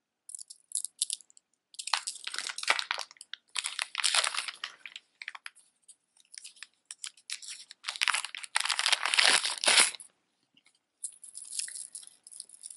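Crinkling and crumpling of a small clear plastic bag being handled and pulled open, in repeated bursts with short pauses.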